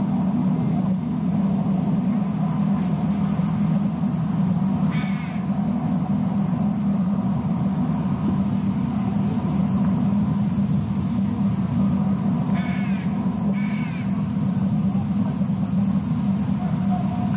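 Three short, harsh, caw-like bird calls, one about five seconds in and two a second apart near the end, over a steady low rumble.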